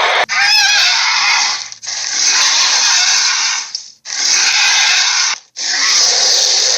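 Gorilla sound effect: a series of loud, harsh, breathy calls, four long ones of about one and a half seconds each with short breaks between.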